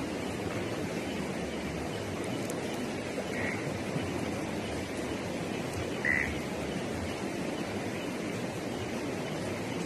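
Steady outdoor night ambience: an even rushing noise, broken by two short high chirps, one about three and a half seconds in and a louder one about six seconds in.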